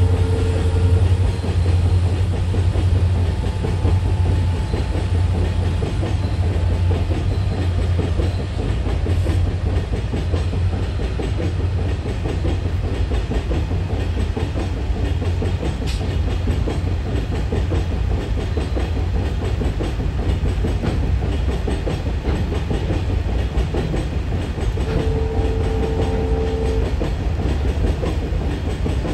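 Heavily loaded goods train rolling past: a steady low rumble of wagons with wheels running on the rails. There is a brief pitched tone about 25 seconds in.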